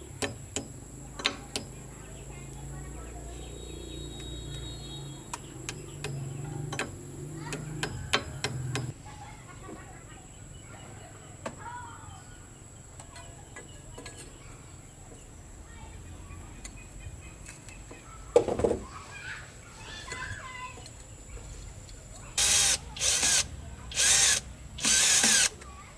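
Installation tool work: scattered knocks and clicks over a low hum that stops about nine seconds in, a single loud knock later, then four short, loud bursts of noise near the end.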